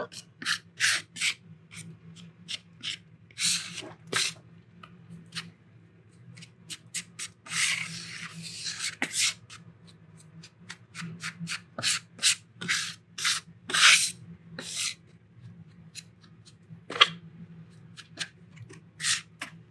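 Metal bench scraper scraping and chopping flour and oil on a marble slab: many short, irregular scrapes, with one longer scrape about eight seconds in.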